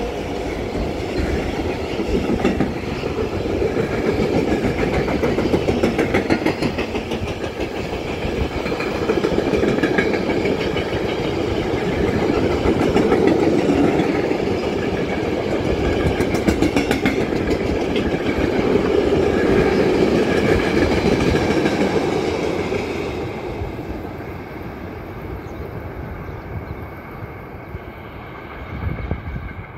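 Freight train passing, its wagon wheels clattering over the rails; the sound fades and dulls near the end as the train moves away. Wind buffets the microphone throughout.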